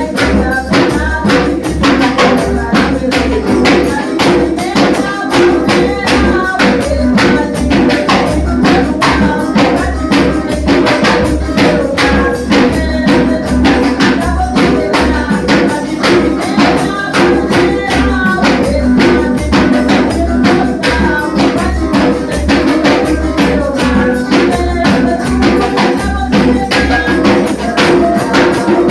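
Gospel band music with a steady, fast beat, tambourine shaking and a pulsing bass line.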